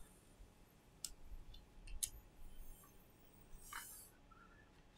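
Faint clicks of metal tweezers against a smartphone display frame, twice, then a brief rustle of handling.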